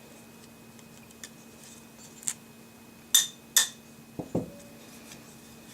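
Metal clicks of AR-15 receiver parts and pivot pin being handled: a few sharp clicks, the loudest two close together past the middle, then two dull knocks about a second later.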